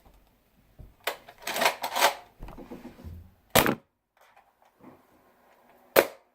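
Spring-powered Nerf Rough Cut 2x4 blaster being worked by hand: a run of plastic clacks and rattles about a second in, then a loud sharp clack a little past halfway and another near the end, as it is loaded, primed and fired in an attempt at two-dart shotgun mode.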